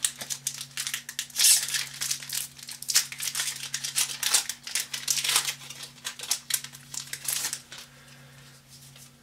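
Foil booster-pack wrapper of Magic: The Gathering cards crinkling as it is handled and opened, in a busy run of crinkles that dies away about seven and a half seconds in.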